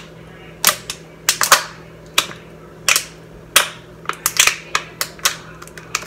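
A person drinking water from a glass: a string of about ten sharp, irregular clicks and gulps as she swallows.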